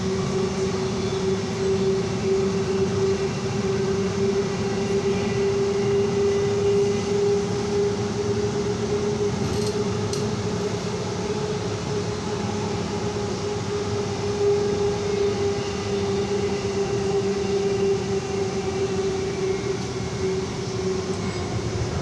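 Passenger train running, heard from inside the carriage: a steady rumble with a constant droning tone over it.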